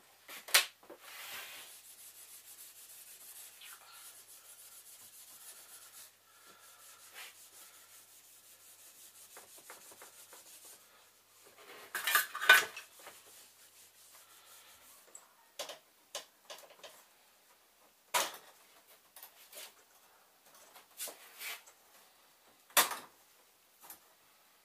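Small hard parts and tools being handled and set down on a workbench: a string of sharp clicks and clinks, loudest in a cluster about halfway through, over a faint steady hiss for the first ten seconds or so.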